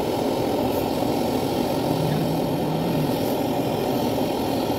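Handheld gas brazing torch burning steadily with an even rushing sound as it heats a copper pipe joint on an air-conditioner condenser coil for brazing.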